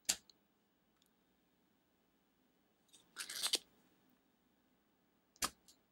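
Spring-loaded aluminium desoldering pump (solder sucker) working on a circuit board: a sharp snap right at the start, a longer scraping clatter about three seconds in as the plunger is pushed down and latched, then another sharp snap near the end as it fires to suck up melted solder.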